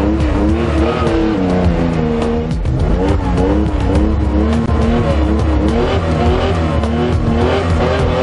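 Rally car engine heard from inside the cockpit, revved up and down over and over so its pitch keeps rising and falling.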